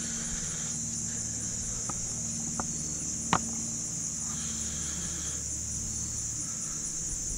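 Insects trilling steadily at a high pitch. A few faint clicks sound over it, the sharpest a little past three seconds in.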